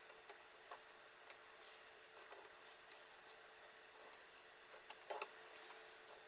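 Faint, scattered clicks and light metal taps of a knife blade being set in the clamp of a fixed-angle knife sharpener, with a small cluster of clicks about five seconds in, over a faint steady hum.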